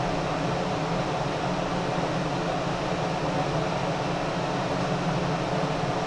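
Ventilation fan running steadily: an even rushing noise with a constant low hum.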